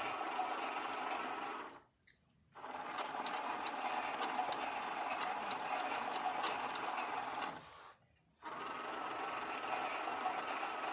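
Toy washing machine's small electric motor running its wash cycle with a steady whirr. It stops briefly twice and starts again each time.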